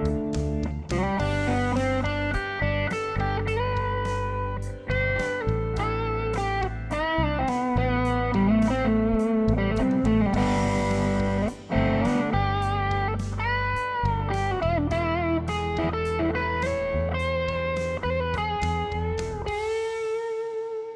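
Burman Sola electric guitar with a single Sunbear P-90-style pickup, played through a Blackstar HT 20 valve amp and 2x10 Celestion cabinet. It plays a bluesy lead of picked single notes with string bends and vibrato over sustained low notes, ending on a long held vibrato note near the end.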